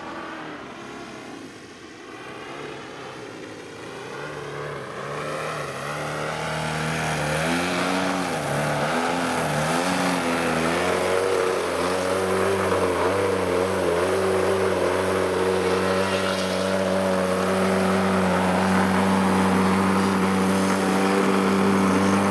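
Radio-controlled aerobatic airplane's engine and propeller, growing louder as it comes in. The pitch rises and dips with throttle changes, then holds a steady note as the plane hangs nose-up in a hover.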